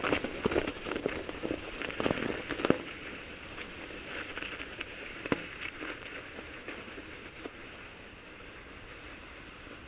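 Mountain bike rolling over snow: a steady crunching hiss from the tyres, with sharp knocks from the bike over bumps in the first three seconds and once more about five seconds in, then quieter, even rolling.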